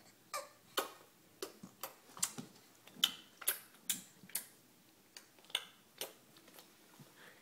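A string of sharp mouth clicks, Violet's attempt at clicking her tongue: about fifteen clicks at an uneven pace of roughly two a second, with a short pause just after the middle.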